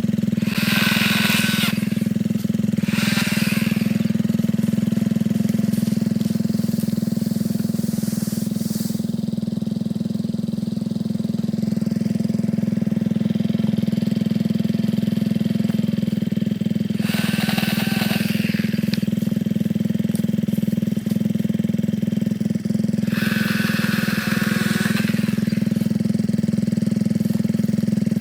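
Ryobi 18-volt battery chainsaw running steadily at full speed, with a few brief, harsher spells.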